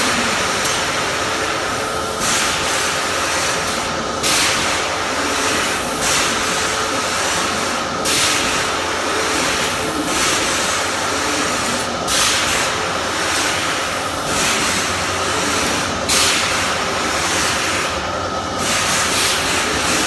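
Panda bouncing jump amusement ride machine running: a steady mechanical hum with a hissing rush that surges about every two seconds.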